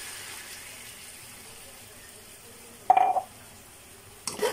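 A glass of water being poured into a wok of simmering pork ribs: a steady pour that fades away over the first couple of seconds. About three seconds in comes a short, loud ringing clink, and near the end a metal spatula starts scraping and knocking in the wok.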